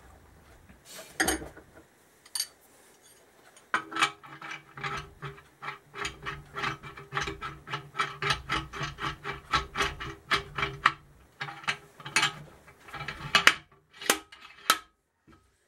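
Slide hammer being screwed onto a blind bearing puller seated in a motorcycle swingarm pivot bearing. For several seconds there is quick, even metal clicking and rattling, about three a second, and near the end come two sharp metal clacks as the slide hammer's weight is moved along its shaft.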